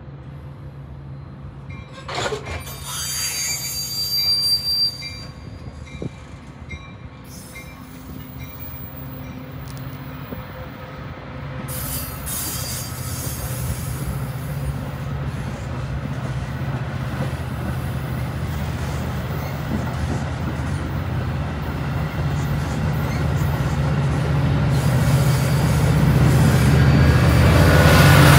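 A diesel-hauled Metra commuter train approaching, its low engine rumble growing steadily louder, with a brief high squeal about two to five seconds in.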